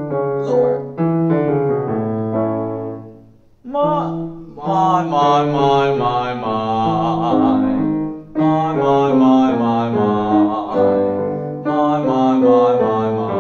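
Piano playing a short pattern of chords, then a classical-style vocal warm-up exercise sung with vibrato over the piano accompaniment, in three long phrases separated by brief breaths.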